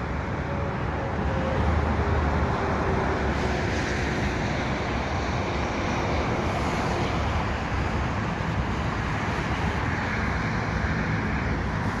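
Steady traffic noise from cars and trucks on an adjacent multi-lane highway: a continuous rush of tyres and engines, with one faint tone that slowly drops in pitch during the first half.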